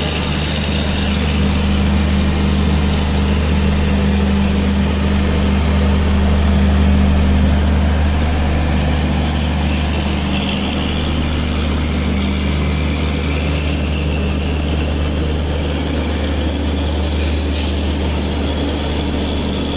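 Steady, loud low hum of running machinery, swelling slightly midway and easing off again.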